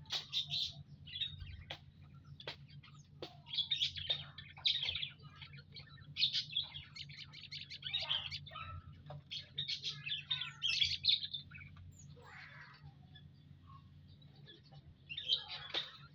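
A group of munias chirping: many short, high chirps in quick clusters with brief lulls, over a steady low hum.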